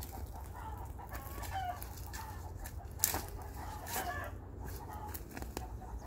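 Chickens clucking, short calls scattered throughout, while a shovel digs into soil around a blackberry root crown, with a sharp strike of the blade about three seconds in.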